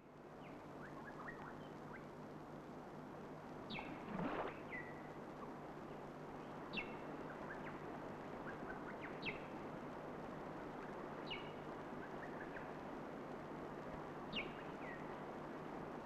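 Wild bird calls in bush ambience: short, sharp notes that drop quickly in pitch, repeated every two to three seconds, with fainter chirps between them over a steady background rush that fades in at the start.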